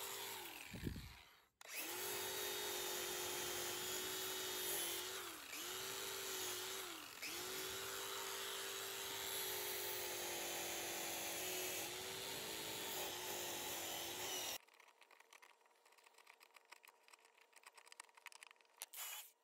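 DeWalt angle grinder running at a steady pitch while it is worked against soft, rotted wood in a black walnut slab, clearing out the softwood. Its pitch sags briefly several times as the disc is pressed in. It cuts off about fifteen seconds in, leaving near silence.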